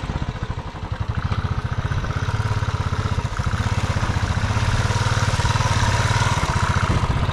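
Royal Enfield Classic 350's single-cylinder engine running with an even, rapid beat as the motorcycle is ridden slowly through deep mud. It grows louder about three seconds in as the bike comes close.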